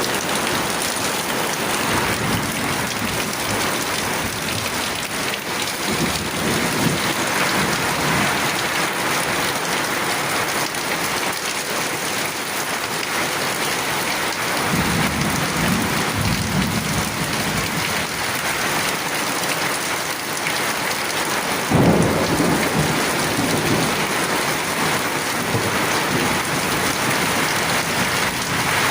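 Steady heavy rain with thunder rolling in low rumbles a few times. A sharper thunderclap about 22 seconds in is the loudest moment, then rumbles away.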